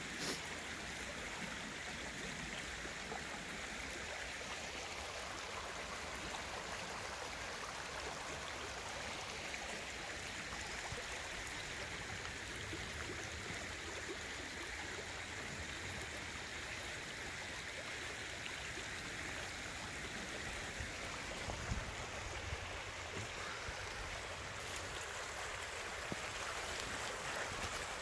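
Shallow, muddy stream flowing steadily over a gravel bed.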